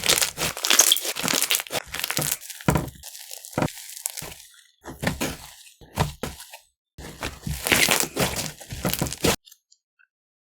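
Snow fizz slime being squeezed and pressed by hand, giving bursts of crunchy crackling with short pauses in between. It goes quiet about a second before the end.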